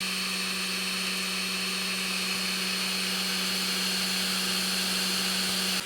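Desktop 3D printer running mid-print: a steady mechanical hum with a constant high whine from its stepper motors and cooling fans.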